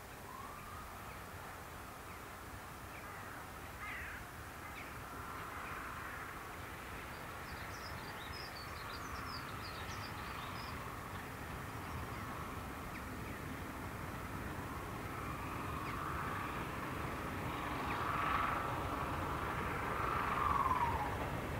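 Crows cawing while a train led by a Class 73 electro-diesel locomotive, running on its diesel engine, approaches, its rumble growing steadily louder. Short high bird chirps come about halfway through.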